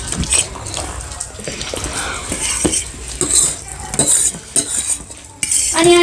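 Steel forks clinking and scraping on steel plates in quick, irregular clicks as noodles are eaten. Just before the end a voice starts up, one long sound falling slowly in pitch.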